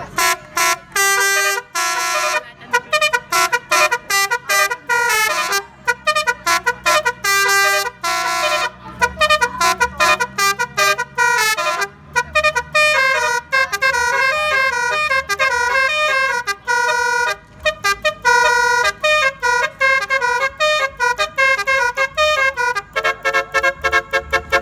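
Basuri musical air horn driven by a DAV tone module, tooting out a fast tune of short, sharp staccato notes, with a few longer held notes among them.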